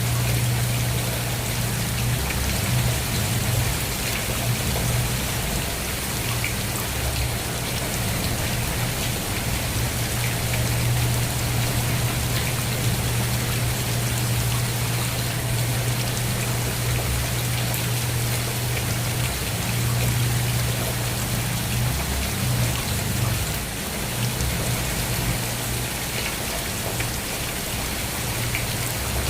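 Steady rain falling on a surface, an even hiss with scattered drops ticking, over a steady low hum.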